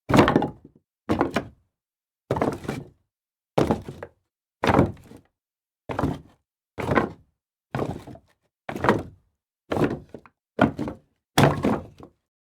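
Pieces of wood being tossed down one after another, each landing with a wooden clunk and a short clatter as it bounces. About a dozen tosses come roughly a second apart, with silence between them.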